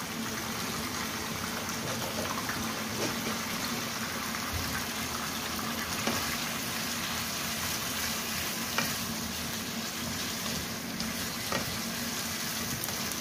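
Chicken pieces sizzling as they fry in oil and ginger-garlic paste in a nonstick wok, with a steady hiss. A wooden spatula stirring them gives a few light knocks against the pan.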